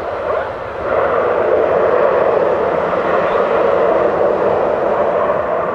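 Panavia Tornado IDS's twin RB199 turbofan engines running with a steady jet roar as the aircraft rolls along the runway after landing. The roar grows louder about a second in and holds.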